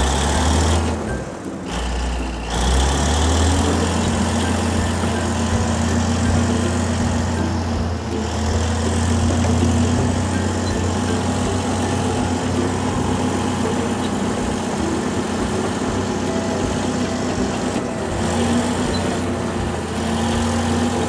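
Steady low engine hum, like a digger's diesel engine running, dipping briefly near the start.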